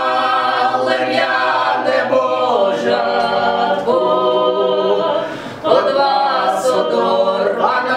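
Small group of voices singing a Ukrainian folk song a cappella in long held notes, the parts gliding from one pitch to the next. The singing fades briefly about five and a half seconds in, then picks up again.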